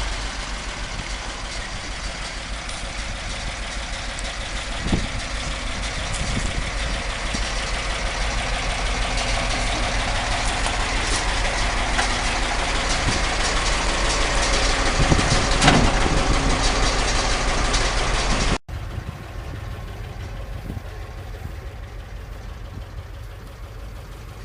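1970 International 2010A truck's IHC six-cylinder engine idling steadily, slowly growing louder, with a few short knocks. About three-quarters of the way through it drops suddenly to a quieter, duller engine sound.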